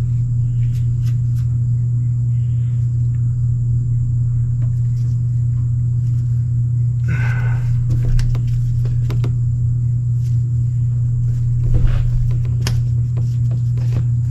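Electric fuel lift pump of a New Holland TS110 tractor running with a steady low hum, pushing fuel through a new filter to bleed air out of the fuel system. A few clicks and knocks come about halfway through and again near the end.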